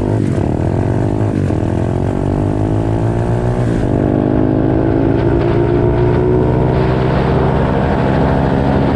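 SSR 125cc pit bike's single-cylinder four-stroke engine with an aftermarket exhaust, accelerating hard from a standstill. The pitch climbs and drops back at three quick upshifts within the first four seconds, then climbs slowly in the higher gear.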